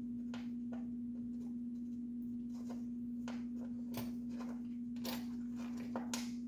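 Faint clicks and taps of the hot-end fan cover on an Ender 3 Pro 3D printer being handled and fitted back on, over a steady low hum at one pitch.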